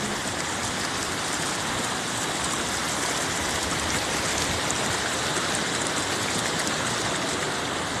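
Mountain stream rushing over rocks: a steady, even sound of running water.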